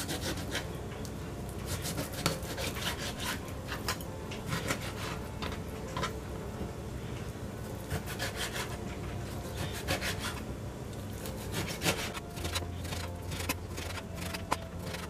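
Kitchen knife cutting raw pork on a plastic cutting board: repeated, irregular sawing strokes through the meat, with the blade tapping the board at the end of each cut.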